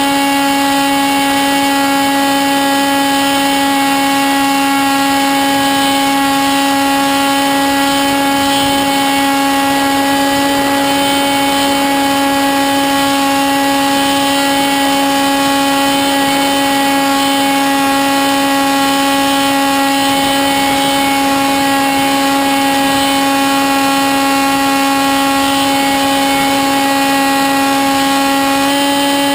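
Electric motor and propeller of a Sky Surfer RC glider, heard from a camera on board in flight: a loud, steady whine with a faint rush of air, its pitch shifting slightly near the end.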